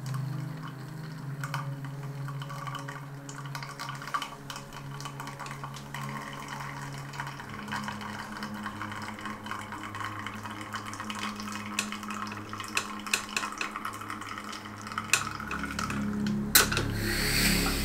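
Espresso pouring in a thin stream from a Flair 58 manual lever press's bottomless portafilter into a glass, a faint trickle with scattered small drip ticks, over quiet ambient background music. A louder burst of noise comes near the end.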